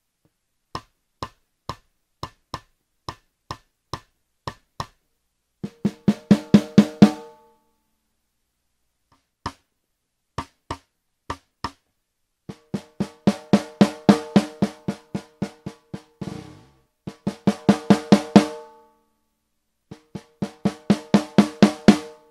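Snare drum struck with a drumstick, heard through a single close microphone: single strokes about two a second, then fast runs of strokes that build in loudness, several times over with short pauses between, each stroke ringing with the drum's pitched tone.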